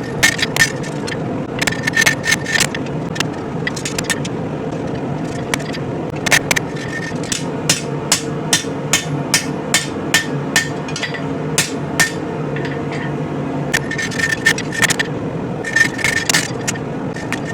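Hand hammer blows on hot spring steel over an anvil, coming in irregular runs with short pauses, some strikes ringing: a sabre blade's bevel and false edge being forged by hand. A propane forge runs steadily underneath.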